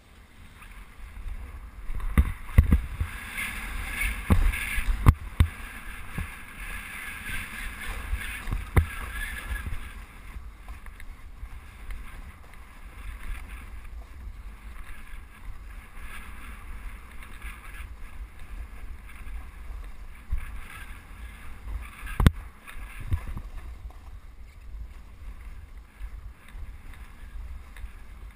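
Rushing wind on an action camera's microphone during a fast slide down a snow slope, with edges scraping and chattering over crusty snow. Several sharp knocks come through, most of them in the first ten seconds, where the sound is also at its loudest.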